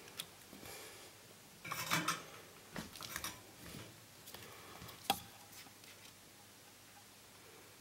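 Small metal hand tools, such as tweezers, clinking and scraping faintly on a workbench, in scattered short bursts with a sharp click about five seconds in.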